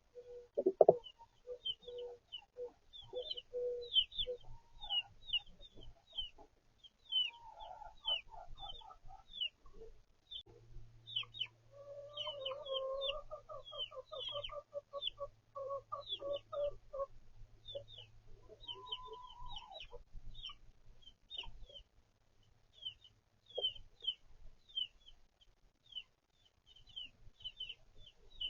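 Chicks peeping steadily in quick, short, falling chirps while hens cluck, including a long run of rapid clucks about halfway through. A sharp knock sounds right at the start.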